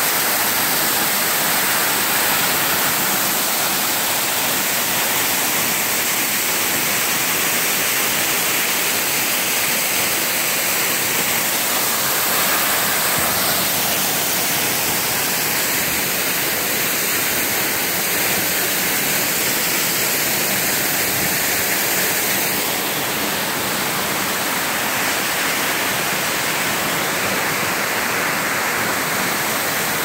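Waterfall pouring: a steady, loud rush of falling water, easing off a little about two-thirds of the way through.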